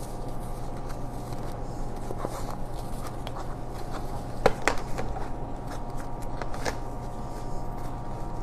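Sewing clips snapping onto stiff fabric, a few sharp clicks with rustling of the fabric being handled, the loudest pair about halfway through. A steady hum runs underneath.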